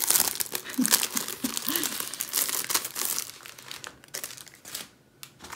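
Clear plastic wrapping on a small kit crinkling as hands handle and open it: dense crackling for the first three seconds or so, then thinning out and dying away near the end.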